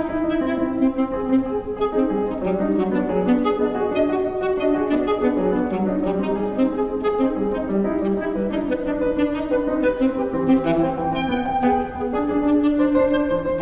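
Alto saxophone and grand piano playing a fast run of short, detached notes that trade off against each other in a hocket texture, in a contemporary chamber piece.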